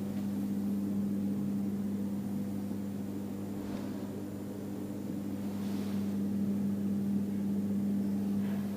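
Steady low machine hum with one strong pitch and fainter overtones, over a faint even hiss.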